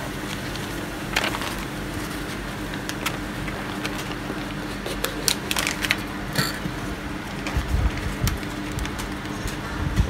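Glossy magazine paper crinkling and rustling as it is pressed and slid over wet spray paint and then peeled off the painting, with scattered small crackles and clicks. A steady low hum runs underneath.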